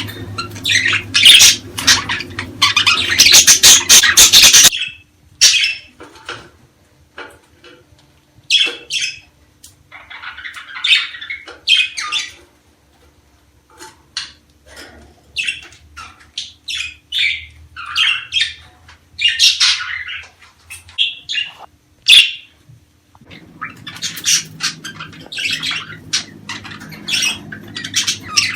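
Budgerigars chattering and squawking: a dense, loud flock chatter that breaks off suddenly, then sparser separate calls, then dense chatter again near the end.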